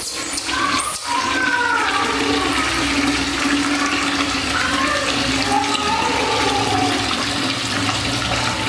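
Tap water pouring steadily into a metal basin of water and splashing as a baby monkey is washed under it. The monkey gives several wavering cries, mostly in the first few seconds and again a little after halfway.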